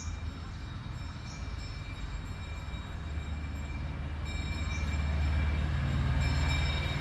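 A small electric motor running, with a strong low hum and thin, steady high-pitched whine tones above it; it grows louder about four seconds in.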